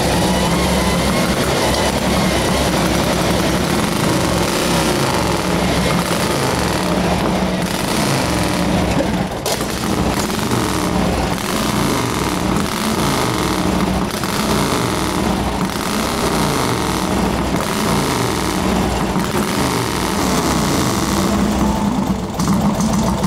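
Big-twin sprint bike engine (George Brown's Vincent-based Nero), normally aspirated and running on about 20% nitromethane, running on the starting rollers.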